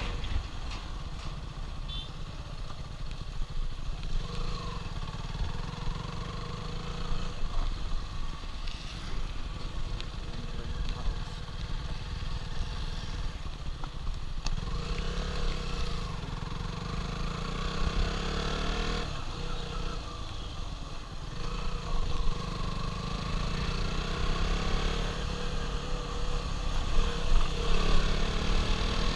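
Motorcycle engine running while riding, its pitch rising and falling a few times as the revs change.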